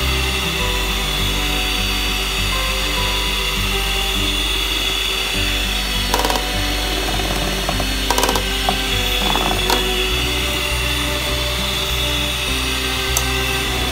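Electric hand mixer running steadily, beating sponge-cake batter, with a few short knocks about halfway through. Background music plays over it.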